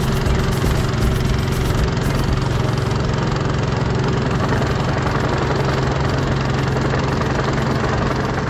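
Small fishing boat's motor running steadily under way, a constant low hum, with a steady rushing noise of water and wind over it.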